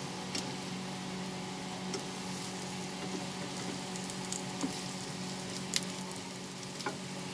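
Coated bread pieces deep-frying in hot oil: a steady sizzle with a few scattered small pops.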